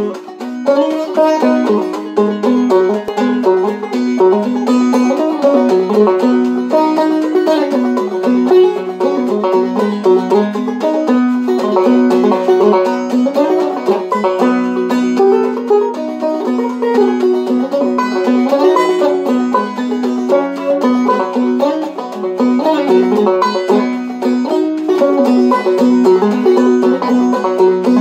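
Gold Tone OB-250 five-string resonator banjo being played, a steady unbroken stream of quick picked notes.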